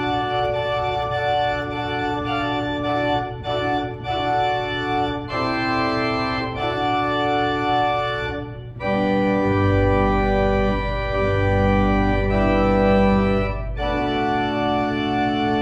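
Organ playing slow, sustained chords. After a short break about halfway through, deep bass notes join in under the chords.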